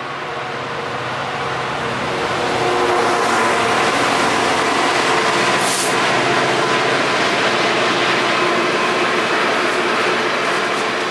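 Diesel freight locomotive passing at the head of a train of engineering wagons: the engine grows louder over the first three seconds as it approaches, then the wagons roll past in a loud, steady rolling noise. A brief sharp hiss stands out about six seconds in.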